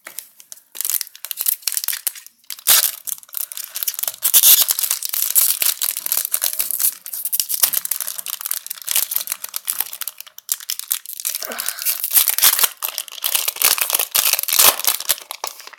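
Foil Yu-Gi-Oh booster pack wrappers being torn open and crinkled: a dense crackling rustle, with a brief lull about ten seconds in.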